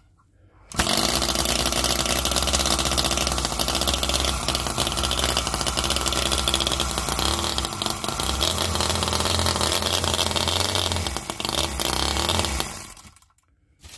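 OKMO 1:5-scale Harley-Davidson Panhead 45-degree V-twin model petrol engine (4.2 cc) starting suddenly about a second in. It runs steadily for about twelve seconds, then dies away near the end.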